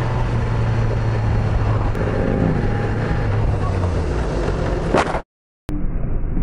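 Sportbike engine running under way, with wind rushing over the helmet-camera microphone. The engine note sags slightly about four seconds in. Just before five seconds comes a sharp knock, then the sound cuts out for half a second and returns duller.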